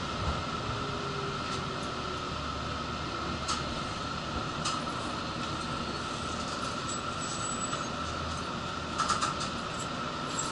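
Interior noise of a Kagoshima City streetcar under way: a steady rumble and hum with a constant high-pitched whine over it. A few short clicks and rattles sound through it, several together near the end.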